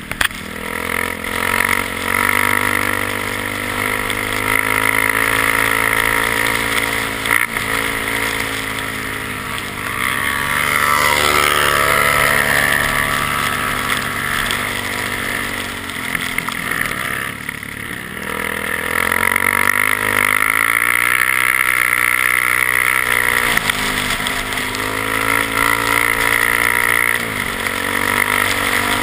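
ATV engine running under way, revving up and easing off, its pitch rising and falling several times.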